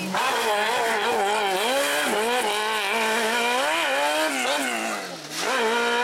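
Sports-prototype race car's engine revving hard, its pitch rising and falling again and again. About five seconds in the note drops low, then climbs sharply again.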